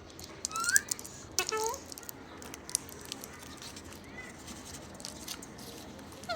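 Parrots giving a few short squeaky chirps that bend up and down in pitch, over scattered small clicks and taps.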